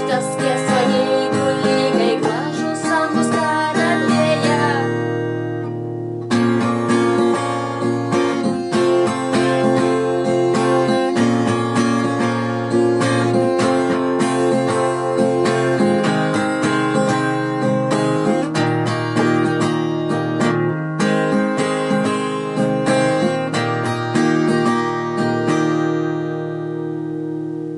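Music led by acoustic guitar, strummed, with a short break about five seconds in before it picks up again, then fading out near the end.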